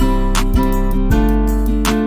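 Background instrumental music, a plucked-string piece with held chords that change about once a second.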